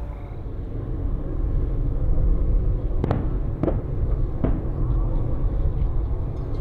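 Fireworks going off: a low rumble of booms, with three sharp cracks about three to four and a half seconds in.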